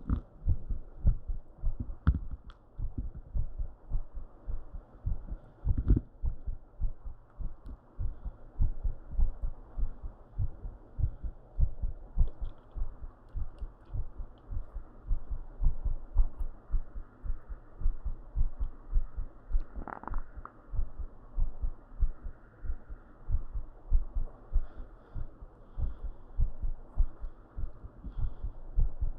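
Human heartbeat picked up close and amplified, after a set of squats: a steady, quick run of soft low thumps. A brief scraping noise breaks in about twenty seconds in.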